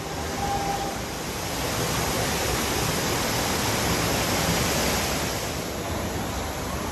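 A steady rushing noise that swells slightly in the middle.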